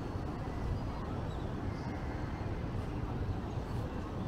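Steady low rumble of outdoor city background noise, with no single sound standing out.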